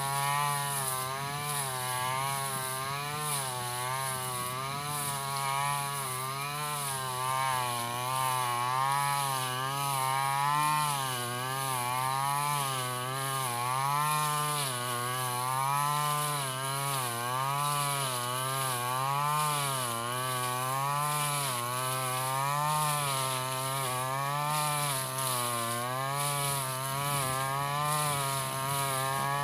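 Stihl FR 3001 backpack brushcutter's two-stroke engine running at high speed while cutting tall grass, its pitch rising and falling about once a second as the load changes.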